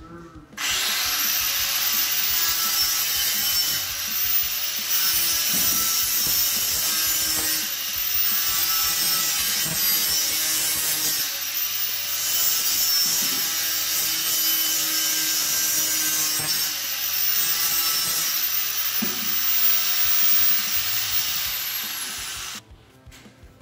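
Handheld electric angle grinder with a sanding disc, grinding against the hardwood floor along the wall. It starts about half a second in with a rising whine as the motor spins up, runs steadily under load with small shifts as it is pressed and moved, then is switched off and winds down near the end.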